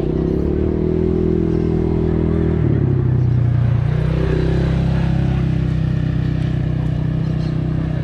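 A motor vehicle's engine running steadily close by, its pitch dropping about two and a half seconds in and then holding.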